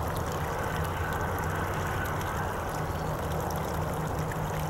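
Steady outdoor background noise: a low rumble with a hiss above it, and no distinct call or event.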